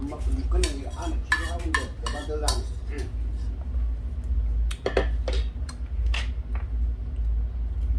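Eating utensils clinking and tapping against a dish in scattered sharp clicks, most of them in the first few seconds and a few more past the middle. Murmured voices sit under the first few seconds, over a steady low hum.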